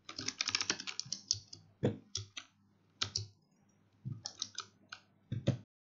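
Keystrokes on a Razer Huntsman Mini keyboard: a fast run of key presses in the first second and a half, then short scattered groups of presses, stopping just before the end.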